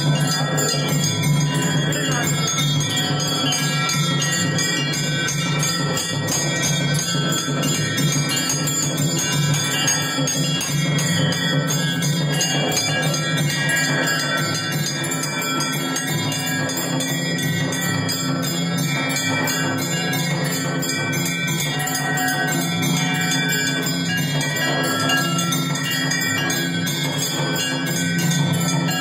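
Temple bells and a metal gong plate ringing and clanging without pause during a Hindu aarti.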